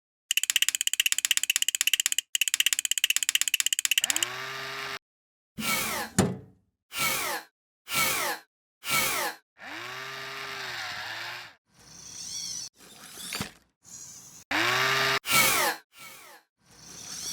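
A string of short, separate electronic sound effects with silences between them: first a fast, even buzzing rattle lasting about four seconds, then several quick falling sweeps and short tones that rise and fall in pitch.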